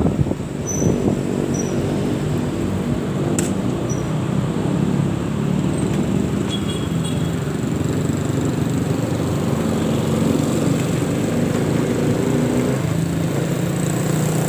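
A motorcycle engine running steadily while riding, heard from on the bike, with its pitch shifting slightly near the end.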